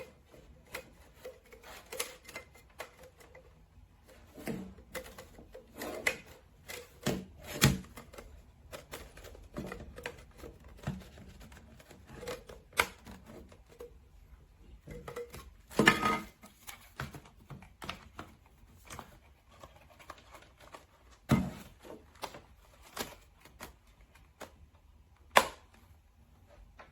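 Plastic hair dryer and its snap-on attachments being handled: irregular clicks, taps and light knocks, with a cluster of handling noise around the middle and one sharp click near the end. The dryer is not running.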